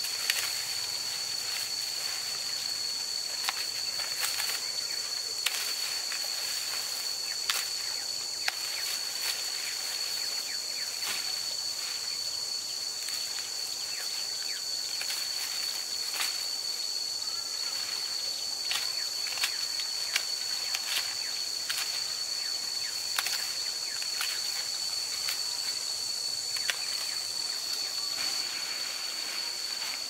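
Dry corn leaves and stalks rustling, with scattered crisp snaps as ears of corn are broken off the plants by hand. Under it runs a steady high-pitched hum.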